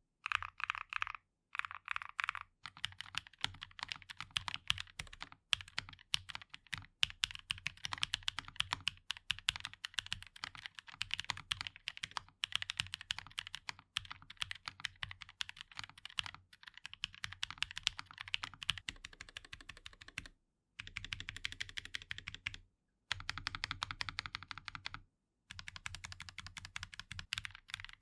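Typing on a NuPhy Nos75 low-profile mechanical keyboard: a fast, steady run of key clacks. It comes in stretches broken by a few brief silences, two of them a little after twenty seconds in.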